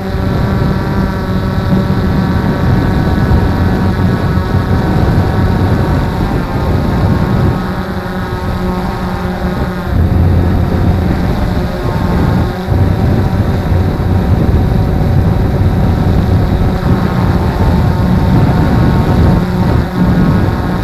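Nova quadcopter's electric motors and propellers running in flight, heard from the camera on board: a loud, steady whine of several tones over a rumble of wind, shifting slightly in pitch and level as it manoeuvres.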